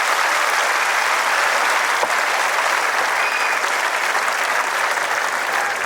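Large crowd in a grandstand applauding steadily.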